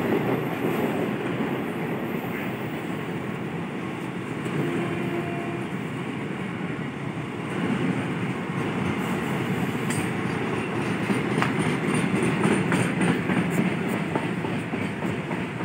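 Flat wagons of a freight train loaded with tanks rolling past with a steady rumble of wheels on rail. A run of clicks as the wheels cross rail joints comes from about nine seconds in.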